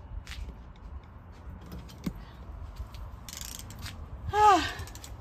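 Scattered clicks and clunks of hand tools at work on a car wheel during a tyre change, with a short scrape near the middle, over a steady low rumble. A brief vocal sound, pitched and falling, comes about four seconds in and is the loudest thing.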